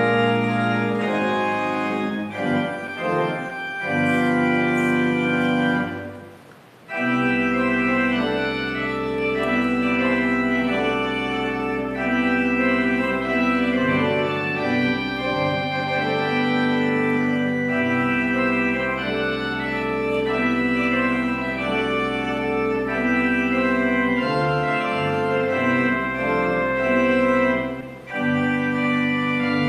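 Organ music: slow, held chords over a sustained low bass line, with a short break between phrases about six seconds in and another near the end.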